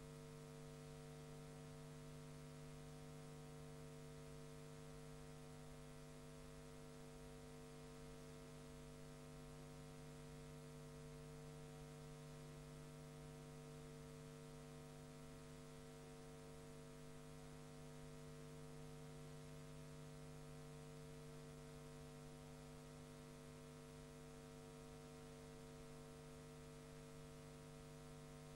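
Near silence: a faint, steady electrical hum with a faint hiss, and no other sound.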